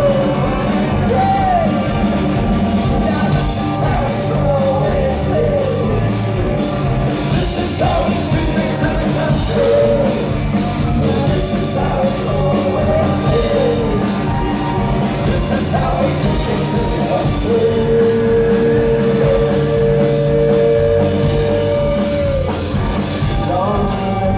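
A live band playing loudly, with guitars and a steady beat, and a man singing over them. About two-thirds of the way through he holds one long note.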